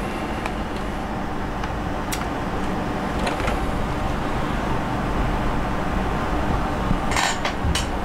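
Steady background noise at an even level, with a few scattered light clicks and a short run of sharper clicks and knocks near the end.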